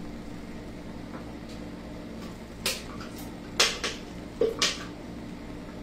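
Cookware knocking on a gas stovetop: a few short, sharp clinks, one about halfway in and a quick cluster of four near the end, over a steady low hum.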